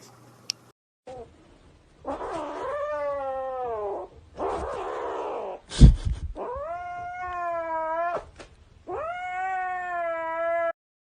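A cat yowling: three long drawn-out wails, each sliding down in pitch, with a hissing noise between the first two. A sharp loud knock comes about halfway through.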